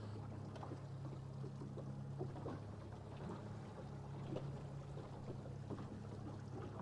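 Outboard motor running steadily at trolling speed, a low even hum, with water splashing and slapping at the stern in irregular short splashes.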